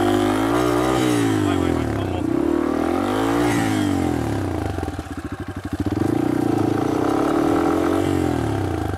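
Dirt bike engine revving up and down several times, dropping to low, chugging revs about five seconds in before rising again.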